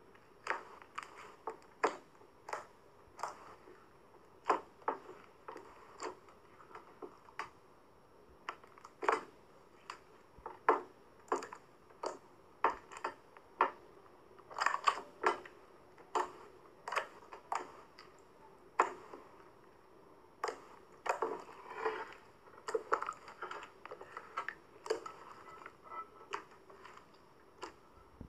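Clear slime loaded with glitter being pressed and stretched by hand, giving sharp irregular pops and clicks about one or two a second as trapped air breaks, over a soft squishing.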